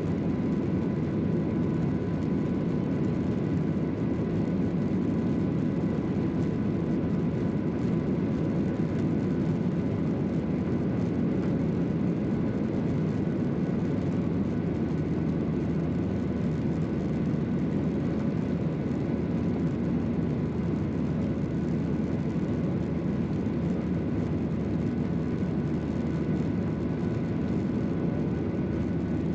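Steady cabin noise of a Boeing 737-800 in its climb after takeoff, heard from a window seat by the wing: its CFM56-7B engines at climb power together with the rush of air. A dense low rumble with a few faint high whining tones held steady above it.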